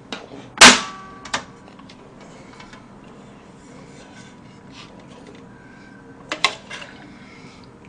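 A sharp metallic clank with a short ring as a stainless steel pot is lifted off the grate of a portable gas stove, followed by a lighter knock; near the end a spoon clinks a few times against the pot.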